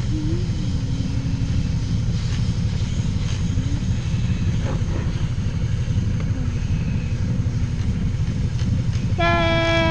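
Lathe running with 400 grit sandpaper held to the spinning grease gun part, polishing it down. A steady motor rumble throughout, and near the end a sudden pitched whine that slowly falls in pitch.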